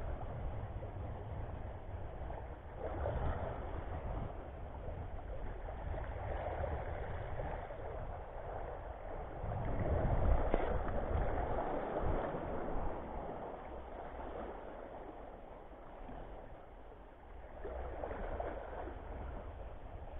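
Wind rumbling on the microphone over small waves lapping and sloshing in shallow water at a rocky shoreline, swelling a few times and loudest about halfway through.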